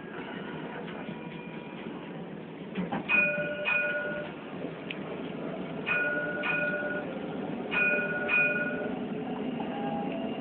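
Alstom Citadis tram's warning gong sounded three times, each a double ding about half a second apart, over the steady running noise of the tram.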